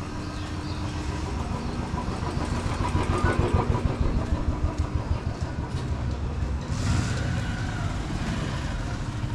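Street noise in a market lane: motorcycle and scooter engines running over a low rumble, growing louder about three to four seconds in.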